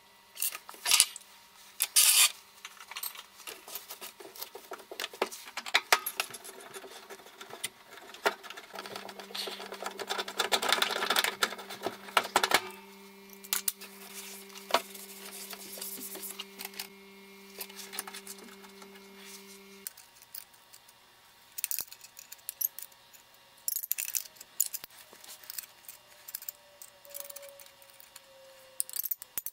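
Hand work on copper water pipe and brass compression fittings: irregular metallic clicks, knocks and scraping from tools and fittings, with a stretch of rubbing in the middle. A steady low hum runs through the middle part.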